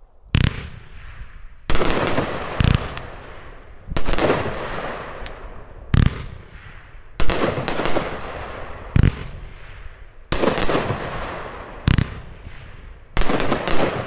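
A consumer fireworks cake firing brocade crown shells: about ten sharp bangs of shells breaking, roughly one every one to two seconds, each followed by a fading hiss as the gold brocade stars burn out.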